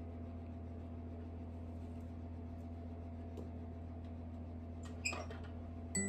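Steady low hum, with a few light clinks about five seconds in as a measuring cup meets the stainless steel mixing bowl.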